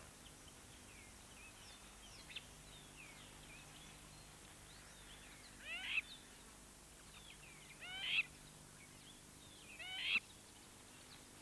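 Wild birds calling: scattered short chirps, then three louder sweeping calls about two seconds apart, starting about six seconds in.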